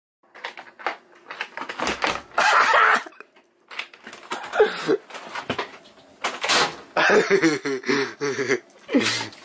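A house door being worked, with handling and rustling noise, and a short burst of laughter near the end.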